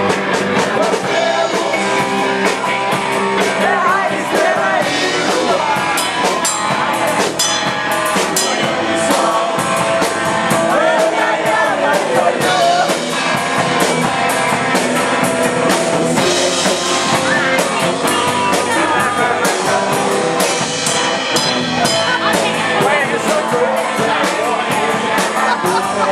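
Live rock band playing loudly: drum kit, electric guitar and some singing, recorded on a camcorder with a crowded, distorted sound.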